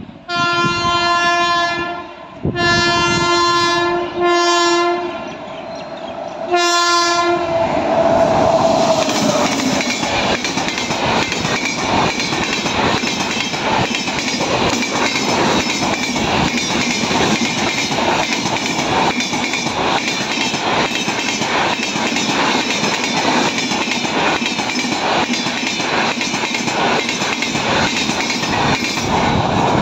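WAP7 electric locomotive's air horn sounding several blasts as the express approaches at speed, its pitch falling as the locomotive passes. Then the coaches rush by, wheels clattering over the rail joints and points' wing rail in a fast, even rhythm.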